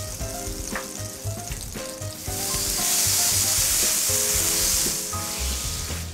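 Butter melting and sizzling in hot oil in a heavy skillet as it is stirred with a spatula; the sizzle swells louder for a couple of seconds in the middle, then eases.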